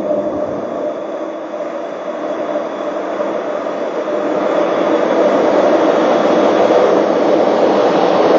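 VR Pendolino (Sm3) electric train approaching at speed, a steady rushing running noise that grows louder through the second half as it nears.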